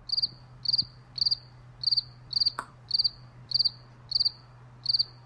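Cricket chirping, a steady run of short trilled chirps a little under two a second, cutting in abruptly: the comic "crickets" sound effect for an awkward silence. A single faint click about halfway through.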